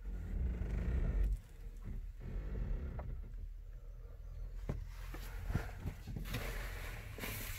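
Camera handling noise as a handheld phone is moved about: a low rumble and rustling, strongest in the first second or so, with a few light knocks and taps from about three seconds in.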